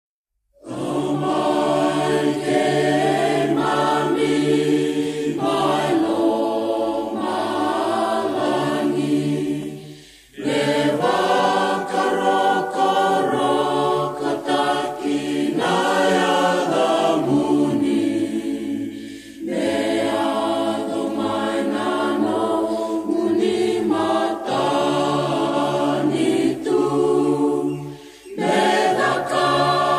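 A choir singing a slow hymn in long, held phrases, with short breaks between phrases about every nine seconds.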